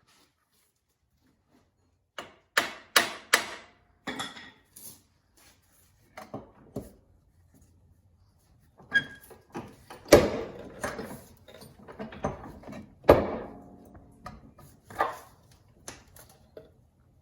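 Irregular knocks and clanks of tools and metal parts as a C5 Corvette's rear axle half-shaft is unbolted and worked loose, starting about two seconds in, some strikes ringing briefly, the loudest about ten and thirteen seconds in.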